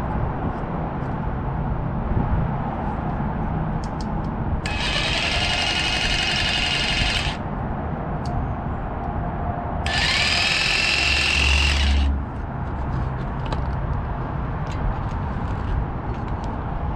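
Handheld power tool cutting a plastic car bumper in two bursts of a few seconds each, its motor whine rising as it spins up, over a steady low rumble.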